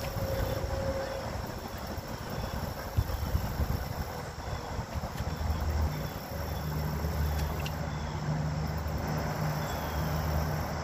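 Outdoor ambience: wind rumbling on the microphone and faint insect chirping, joined about six seconds in by a steady low engine hum from a vehicle.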